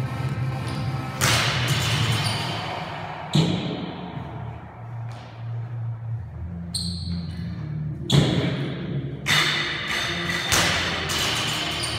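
Thuds of an athlete's feet and body hitting a gym floor and a wooden plyo box during burpee box jumps, about five impacts at uneven spacing. Background music with a steady bass line plays throughout.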